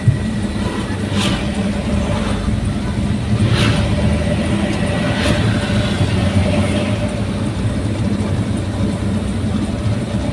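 Daihatsu Gran Max pickup running on the road, its engine and aftermarket exhaust giving a steady low drone with a few brief hissy swells.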